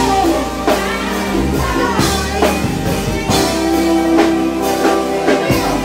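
Live band music playing loudly: a drum kit striking under sustained chords and held notes.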